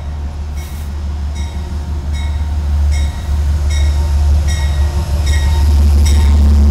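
Metro-North P32AC-DM diesel locomotive arriving and growing louder as it draws up alongside, its engine a deep steady rumble. Over it a bell-like ding repeats about every 0.8 s, as a locomotive bell does when a train enters a station.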